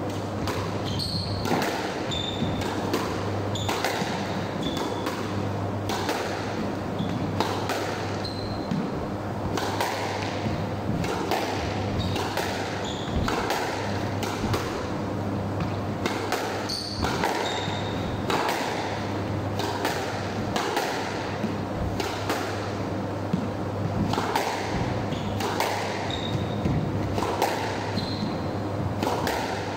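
Squash rally: the ball cracking off rackets and the court walls in a quick, irregular series of sharp hits, with brief high squeaks of shoes on the wooden floor. A steady low hum runs underneath.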